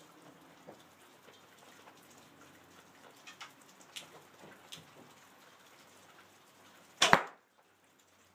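A wooden arrow shot from a recurve bow strikes a foam block archery target with one sudden loud impact about seven seconds in. A few faint ticks come a few seconds before it.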